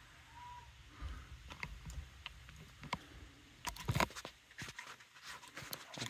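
Handling noise: scattered light clicks and taps at uneven intervals, with a cluster of louder knocks about four seconds in and a brief faint tone near the start.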